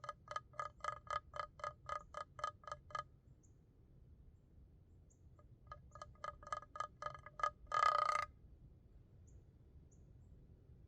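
An animal call in the woods: two quick runs of short, repeated notes, about five or six a second. The second run ends in one longer, louder, harsher note.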